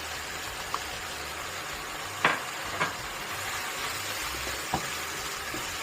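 Meat stir-frying in a pan with sauce, sizzling steadily, with a few sharp knocks of the stirring utensil against the pan, the loudest about two seconds in.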